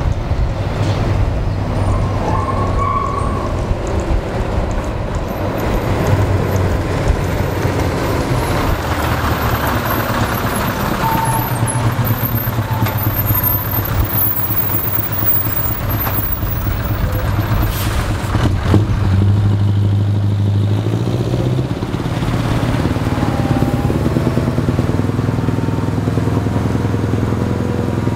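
Scania R500's V8 diesel engine running as the 8x4 tipper truck pulls its trailer past at low speed, the engine note rising briefly about two-thirds of the way through.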